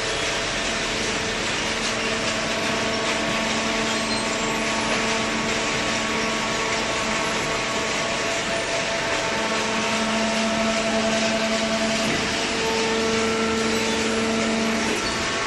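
Industrial cardboard baler machine running: a steady mechanical hum over a constant hiss, its tones growing a little stronger about two-thirds of the way through.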